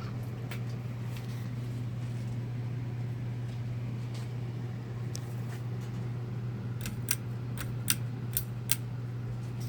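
Harbor Breeze Armory 42-inch ceiling fan running, its motor giving a steady low hum. A handful of sharp clicks come near the end.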